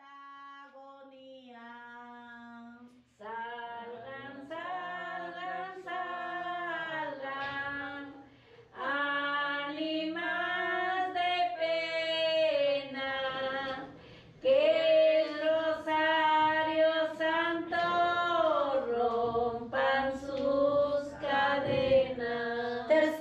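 Unaccompanied female singing: a slow religious song with long held notes that glide between pitches. It starts softly and grows louder about three seconds in.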